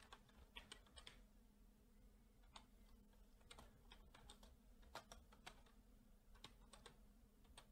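Faint computer keyboard typing: irregular, scattered keystroke clicks with short pauses between them.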